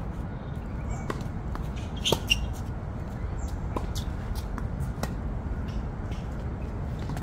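Tennis rally on a hard court: short sharp knocks of racket strings hitting the ball and the ball bouncing, the loudest pair about two seconds in, with sneaker squeaks and scuffs over a steady low background rumble.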